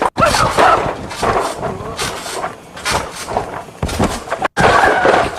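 A person making growling, animal-like vocal sound effects mixed with clattering noises, broken twice by abrupt gaps.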